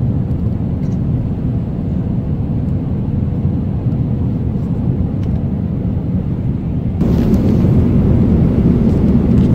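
Airliner cabin noise in flight: a steady low rumble of engine and airflow noise that steps up in level about seven seconds in.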